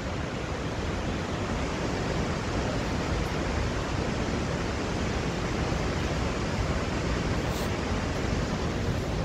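Steady, even rush of a large waterfall, the Chitrakoot Falls, with water crashing continuously.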